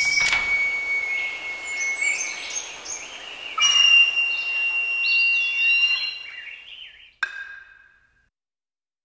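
Birds chirping, with short bending calls over a steady, high, whistle-like tone. The sound fades out to silence about eight seconds in.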